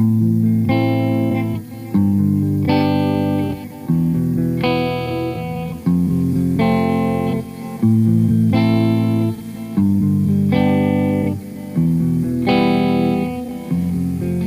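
Background music: guitar playing a repeating pattern of plucked chords, a new chord about every second.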